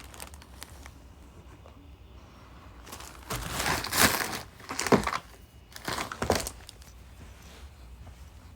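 Food packaging crinkling as it is handled, in three short bursts in the middle of the stretch, after a few quiet seconds.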